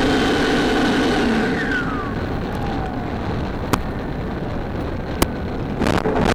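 RC model plane's motor whining with several steady tones, then winding down in pitch about a second and a half in as the throttle is cut. This gives way to a rough rumble as the plane rolls across grass on landing, with two sharp clicks.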